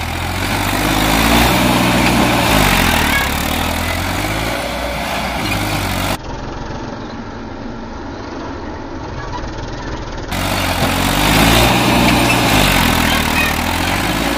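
Massey Ferguson tractor's diesel engine working in a field with a plough hitched behind, its note rising and falling again and again.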